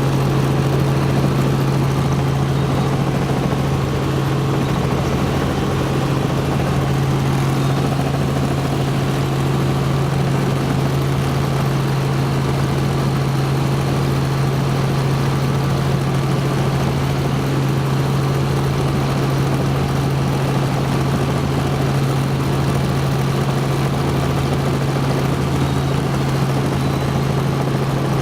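Helicopter's engine and rotor running steadily: a constant low hum with a slow pulsing beat underneath.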